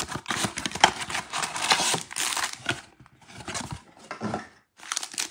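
Hands tearing open a cardboard trading-card blaster box and handling the plastic-wrapped packs inside: a dense crinkling and tearing, broken by two short pauses.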